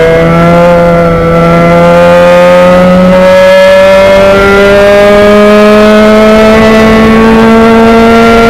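Race car engine heard from inside the cockpit, pulling hard down a straight, its pitch climbing slowly and steadily as the car accelerates.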